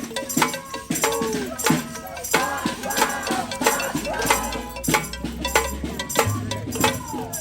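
Noise-rally din: tambourines, shakers and other hand percussion rattling and struck in quick irregular hits, with voices whooping over it.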